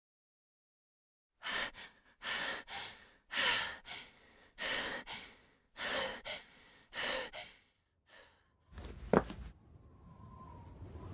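A girl breathing heavily: a run of deep breaths in and out, each about half a second long, after a moment of silence. About nine seconds in there is one sharp knock, then a steady hiss that slowly grows.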